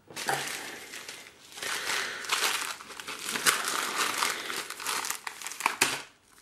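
Plastic postal mailer bag crinkling as it is handled and opened, and a small plastic bag of metal key rings is pulled out, with a few sharp clicks.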